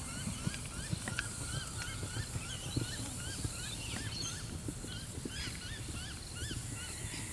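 A bird calling in a long run of short rise-and-fall notes, about three a second, over the soft, irregular thuds of a horse's hooves on a sand arena.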